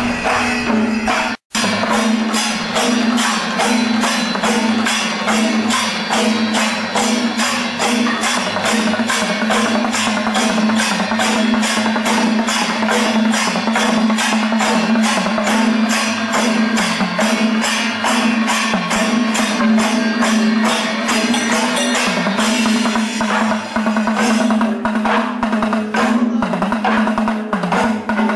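Percussion music of drums and clashing hand cymbals keeping a steady, fast, even beat over a sustained held tone. The sound cuts out for an instant about a second and a half in.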